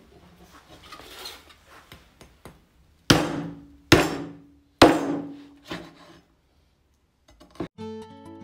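Heavy meat cleaver chopping into a bone-in leg of young goat on a wooden cutting board: three hard chops about a second apart, then a lighter fourth, each with a short ring. Acoustic guitar music comes in near the end.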